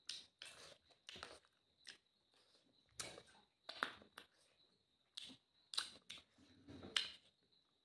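Close-up eating sounds: chewing and sucking on a chicken bone, with fingers picking rice and scraps from a plate, in short irregular bursts. A faint steady high-pitched whine runs underneath.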